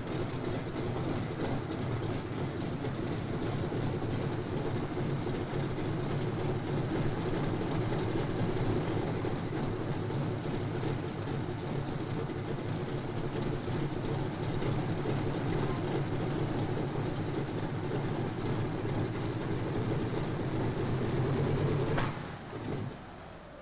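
A Douglas AD-1 Skyraider's Wright R-3350 eighteen-cylinder radial engine running rough and steady at low power as the plane taxis. Near the end the engine sound cuts off sharply and fades away as the engine is shut down.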